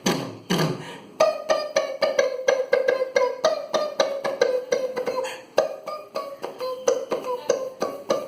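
Vocal mimicry of a film's background score, beatbox style. Two deep falling booms open it, then a hummed tune on a held note runs under a fast run of sharp mouth clicks like a wood block.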